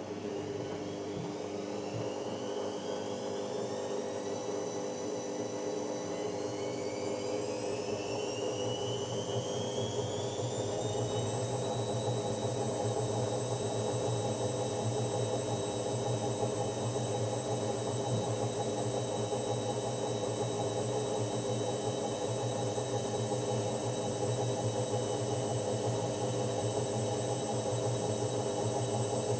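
Electrolux TimeSaver top-loading washing machine's drum motor speeding up into its spin: a whine rises in pitch for about ten seconds, then holds steady over a constant hum as the drum runs at spin speed.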